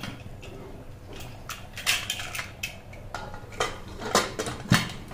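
Metal clanks and clicks of a pressure cooker lid being fitted and closed on the aluminium cooker: about nine separate knocks over a few seconds.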